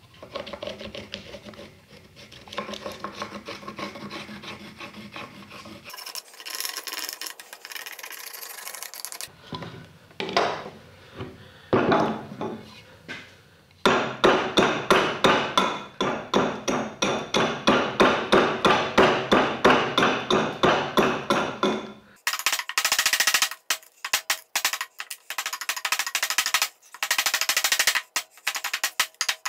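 Carpenter's axe hewing an oak handle blank: sharp chopping strokes, first a steady rapid run of about four a second, then in uneven flurries. Before the chopping there is rubbing and scratching on the wood.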